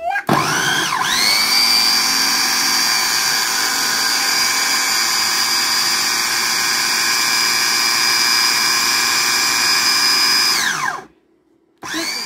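Prestige electric food chopper's motor beating eggs. It spins up with a rising whine, runs at a steady high whine for about ten seconds, then winds down and stops near the end.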